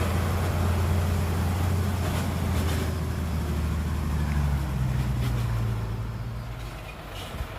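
Heavy diesel engine of a Hyundai dump truck running, its engine note dropping in pitch and fading toward the end.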